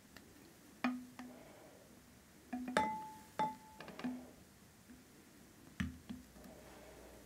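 A scattering of light knocks and clinks from bottles and glassware being handled and set down on a bench, about eight in all. The loudest, about three seconds in, has a short ringing note.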